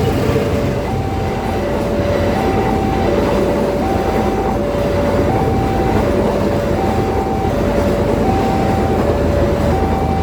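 Level-crossing warning signal sounding its two alternating tones, high and low, each lasting about three-quarters of a second, while a train runs past over the crossing with steady rolling rail noise.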